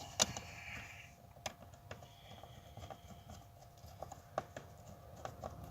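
Scattered light clicks and taps of parts and hand tools being handled as the car is screwed back together, with a sharper click just after the start, over a faint steady hum.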